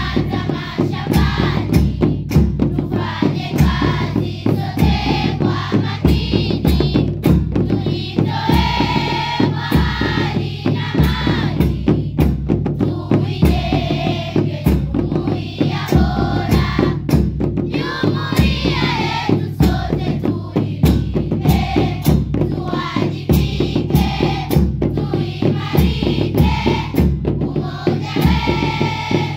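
Music: singing voices, choir-like, over a steady beat of drum kit and bass.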